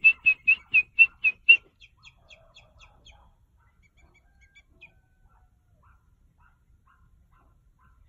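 Short-toed snake eagle calling: a rapid series of sharp, high whistled notes, about four a second, loud for the first second and a half and then fading away, followed by a few faint calls.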